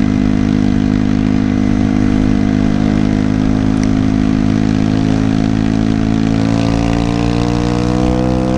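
Honda CBR125's single-cylinder four-stroke engine pulling the bike along at steady revs, then climbing in pitch from about six seconds in as it accelerates.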